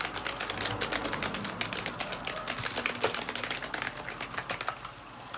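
Keys of a budget membrane-style gaming keyboard being pressed in quick runs, a rapid clatter of key clicks that thins out near the end.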